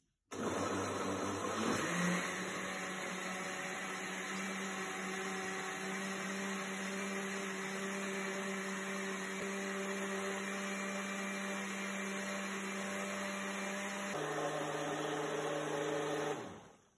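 Countertop blender motor running, blending a thick mix of cooked breadfruit, water and condensed milk. It starts just after the beginning, rises in pitch over the first couple of seconds and holds steady. Near the end it drops to a lower pitch and then is switched off.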